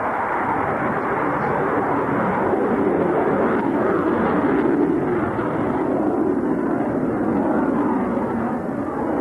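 A jet fighter's engine noise as it manoeuvres overhead: a steady, loud rush that swells slightly in the middle and eases a little near the end.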